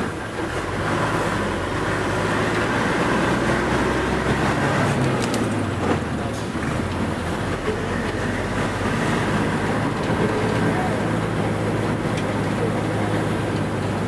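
Bus engine running with road and rattle noise, heard from inside the passenger cabin while it moves, its low hum shifting in pitch a few seconds in.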